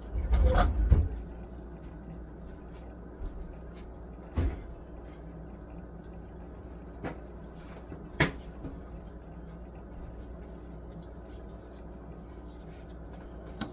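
Kitchen handling noises: a cluster of knocks and clatter in the first second, then a few single sharp knocks several seconds apart, such as containers and utensils being set down or a cupboard door closing, over a low steady background hum.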